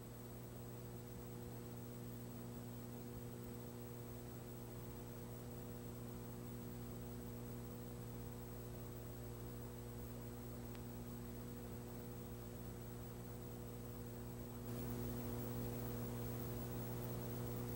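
Steady electrical mains hum with several overtones, a little louder from about fifteen seconds in.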